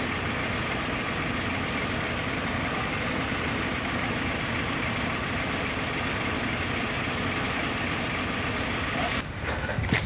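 Heavy diesel engine idling steadily and evenly, breaking off abruptly shortly before the end.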